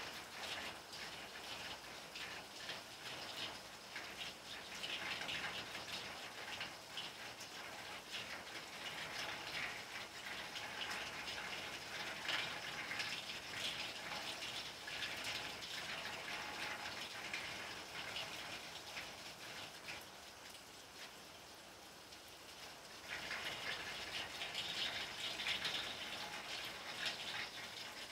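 Steady rain falling, a dense patter of drops, easing for a few seconds about twenty seconds in before picking up again.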